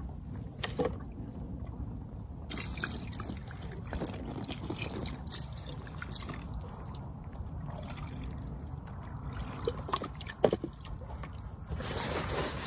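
Water dripping and trickling, with scattered light knocks and clicks; the sharpest knock comes near the end.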